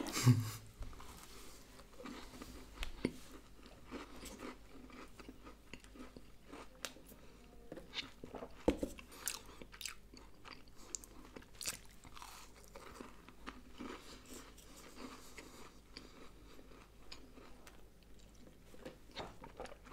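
Close-up chewing and crunching of a double chocolate chip cookie, with one loud bite just at the start and then steady, quieter chewing.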